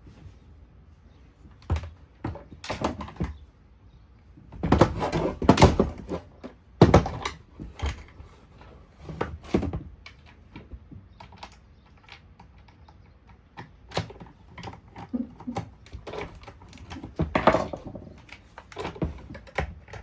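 Irregular plastic clicks, knocks and clatter from a Shark vacuum's power-nozzle housing being handled and screwed together, with a few louder bursts of rattling among quieter ticks.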